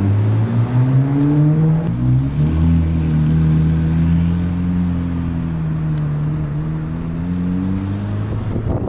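Chevrolet Corvette C8 Z06's 5.5-litre flat-plane-crank V8 pulling while driven. Its pitch rises, drops abruptly about two seconds in, rises again, then holds roughly steady.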